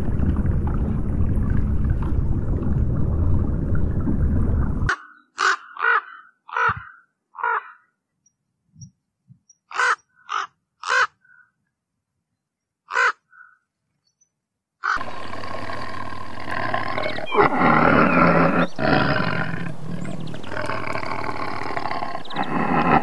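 Rook cawing: about nine short, harsh caws, some in quick pairs, spread over ten seconds with silence between them. Before the caws there is a steady low rumble, and after them a steady noisy stretch with a pitched layer.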